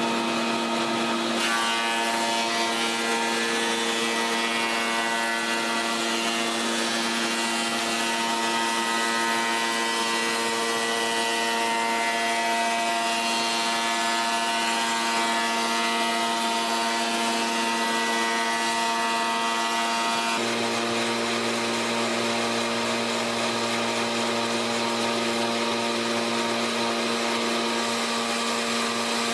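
Williams & Hussey molder running at a steady, unchanging pitch, its cutterhead shaping curved wood stock fed through on curved guides. About 20 seconds in, the tone shifts and a low hum joins.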